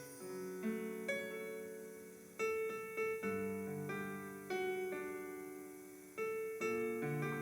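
Slow, gentle piano playing: chords and single notes struck about once a second or less, each left to ring and fade.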